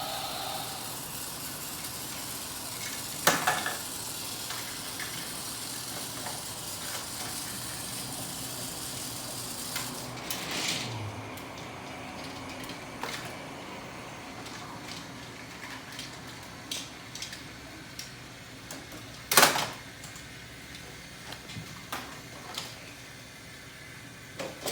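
Battery-powered GeoTrax toy train running on its plastic track: a steady whirring hiss with scattered light plastic clicks and clatter. There are two louder knocks, about three seconds in and near twenty seconds, and the whirring fades after about ten seconds.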